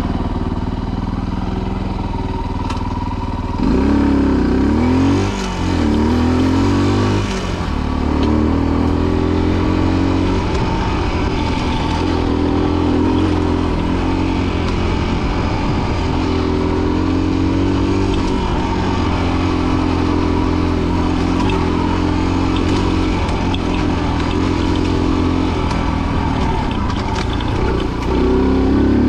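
Rieju Marathon Pro 125 enduro motorcycle's 125 cc single-cylinder engine, steady for the first few seconds, then revving and pulling along a trail, its pitch rising and falling with the throttle. It dips briefly near the end before climbing again.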